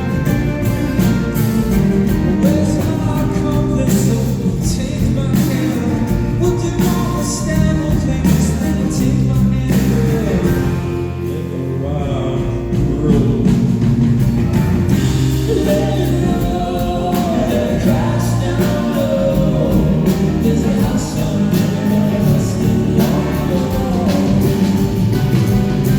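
A band playing a song with singing, the voices joining together in a choir-like chorus over steady instrumental backing.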